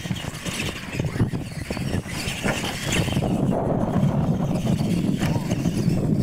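Two radio-controlled monster trucks racing side by side across a dirt track, their motors and tyres running steadily.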